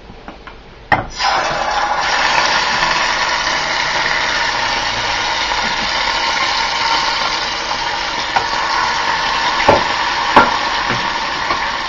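A slab of pork shoulder and crushed garlic frying in hot oil in a nonstick pan. A steady, loud sizzle starts about a second in, and chopsticks knock against the pan a couple of times near the end.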